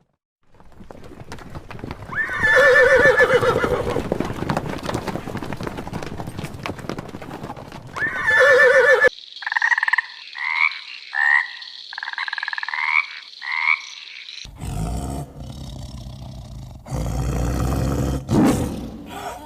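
A horse whinnying twice, long wavering calls about two seconds in and again near eight seconds, over a noisy background. After an abrupt cut comes a series of about seven short calls from another animal, each rising at its end, then a different noisy stretch.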